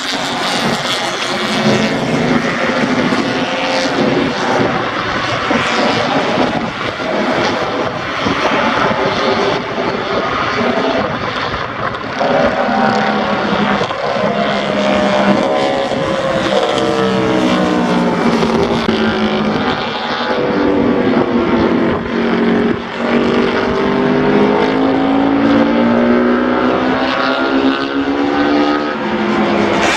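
Several vintage racing motorcycle engines, all built before 1972, running on a racetrack together, their notes overlapping. About twelve seconds in, separate engine notes stand out, rising and falling as the bikes rev and change gear.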